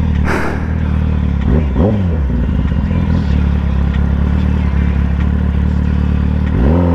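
Kawasaki ZX-10R's inline-four engine running while riding, with a quick rise and fall in revs about a second and a half in, and revs climbing again near the end.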